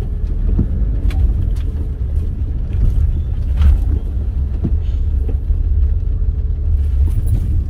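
Car driving slowly over wet streets, heard from inside the cabin: a steady low engine and road rumble, with a few light knocks.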